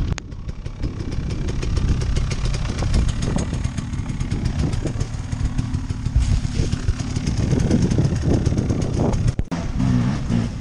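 Off-road motorcycle (dirt bike) engine running hard and close as the bike climbs a steep, slippery hill. The sound cuts out briefly near the end.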